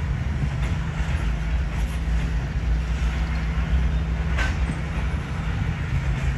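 Freight train of covered hopper cars rolling past: a steady low rumble of steel wheels on rail, with one sharp click about four and a half seconds in.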